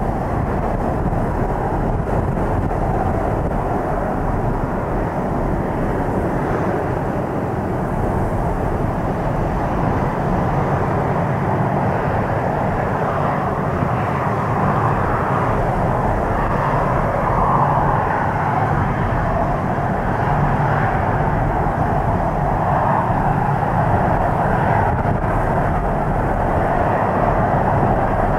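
Boeing 737-300 jet taxiing, its two CFM56 turbofans running at low taxi power with a steady jet rumble, a little louder over the last ten seconds. Gusty wind rumbles on the microphone underneath.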